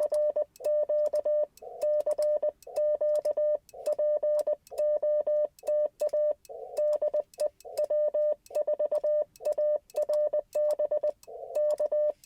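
Morse code sent as the Icom IC-705's CW sidetone: one steady mid-pitched tone keyed on and off in dits and dahs, each element starting and stopping with a faint click. Between elements the receiver hiss is muted, as the radio is transmitting.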